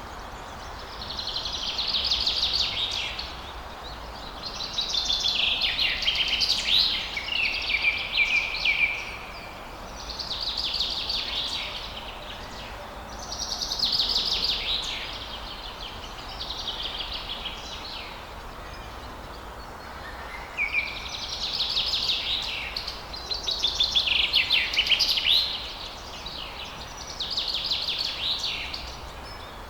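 A songbird sings about eight phrases of quick trills and warbles, each a couple of seconds long with short pauses between, over a steady background hiss.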